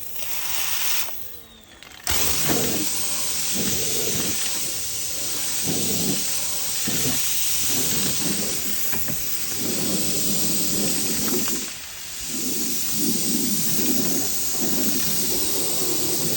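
Pressure washer spraying water through an undercarriage washer attachment: a short burst of spray hiss at first, then a loud, steady rush of spray from about two seconds in, dipping briefly near twelve seconds.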